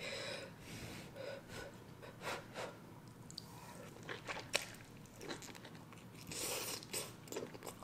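Mouth sounds of biting and chewing king crab leg meat with melted cheese, eaten by hand: scattered soft, wet clicks and smacks.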